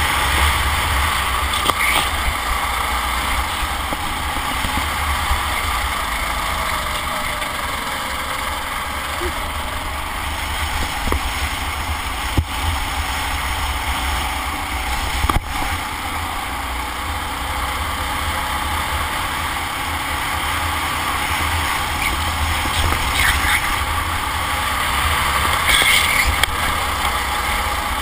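Kart engine running at racing speed, heard from onboard with heavy wind rumble on the camera; its pitch dips and rises again as the kart slows for a corner and accelerates out. Two sharp knocks come a few seconds apart past the middle.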